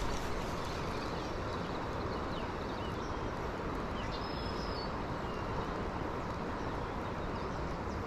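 Steady rushing of river current, with a few faint bird chirps and a brief thin high call about halfway through.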